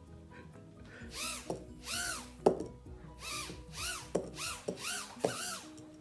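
Small toy quadcopter drone's motors whining in short bursts, about two a second, each rising and falling in pitch as the throttle is blipped, with a sharp knock about two and a half seconds in.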